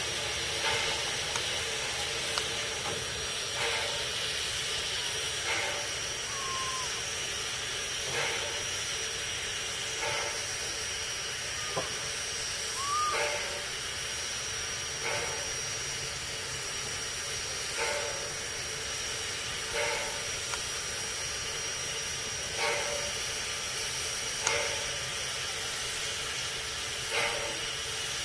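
Robert Dollar Co. No. 3 steam locomotive standing and hissing steam, with a short puff about every two seconds.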